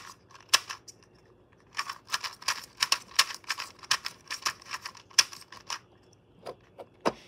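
GAN 249 V2 2x2 speedcube being turned by hand: one click, a short pause, then a fast run of sharp plastic clicks and clacks for about four seconds. The cube is new and not yet broken in.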